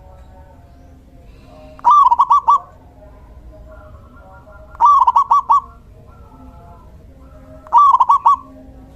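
A male zebra dove (perkutut) cooing: three loud song phrases about three seconds apart, each a quick run of four or so notes.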